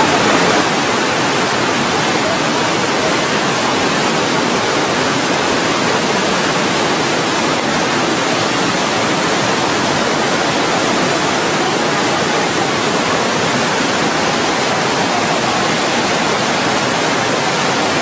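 Waterfall on a flood-swollen river: a steady, loud rush of white water pouring down the cascade.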